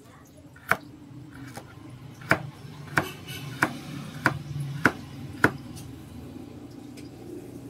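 Knife slicing a carrot on a plastic cutting board: seven sharp knocks of the blade on the board, a little over half a second apart after a longer gap following the first, then stopping.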